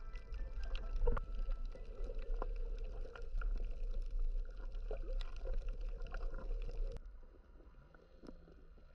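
Underwater sound through a GoPro's housing over a coral reef: a muffled low rumble of water with scattered sharp clicks and crackles. About seven seconds in it cuts abruptly to a quieter stretch.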